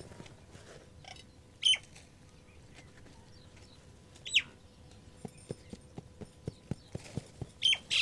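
Farmyard birds calling: a short sharp squawk about a second and a half in, a quick falling call about four seconds in, and more calls near the end. Between them comes a run of soft ticks, about two a second.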